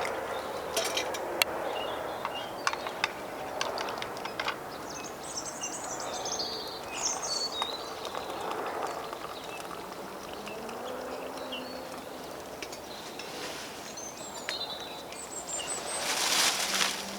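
Small birds chirping over a steady outdoor background, with a few sharp clicks in the first few seconds and a short louder rush of noise near the end.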